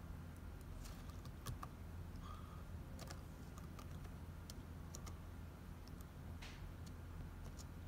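Laptop keyboard keys being tapped in scattered, irregular keystrokes, over a steady low hum.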